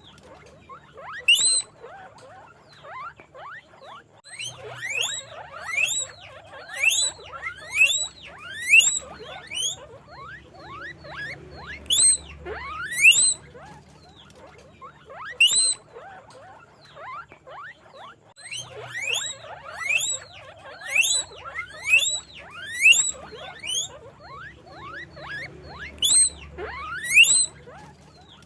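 Guinea pigs wheeking: a string of loud, sharply rising whistled squeaks, coming in runs of about one or two a second with short lulls, and fainter squeaks in between.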